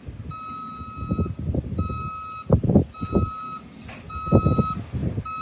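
A farm vehicle's reversing alarm beeping, one steady tone about once a second, five beeps in all, over a low rumble and irregular thumps.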